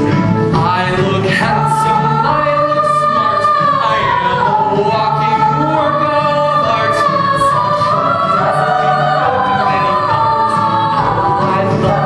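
A musical theatre cast and children's chorus singing together in held, sustained lines over musical accompaniment with steady low notes.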